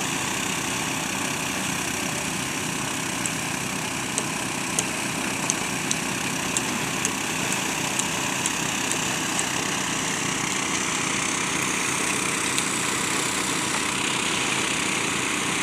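Small engine running steadily, driving a gold-washing machine. A run of sharp ticks, about two a second, sounds over it from a few seconds in until about the middle, and one more comes later.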